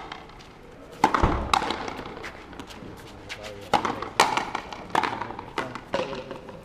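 Frontenis rally: rackets strike the rubber ball and the ball smacks off the front wall. It comes as a run of about seven sharp cracks at uneven intervals, each followed by a short echo.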